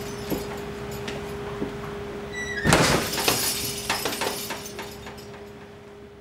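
A loud crash and clatter about two and a half seconds in, just after a short high squeak, with scattered knocks and clinks before and after, over a steady low hum. The whole sound fades away near the end.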